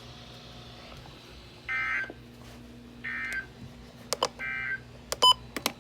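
Three short bursts of buzzing EAS/SAME digital data tones from NOAA Weather Radio, about 1.4 s apart: the end-of-message code that closes a warning broadcast. Near the end come a few sharp clicks and a brief, loud high beep.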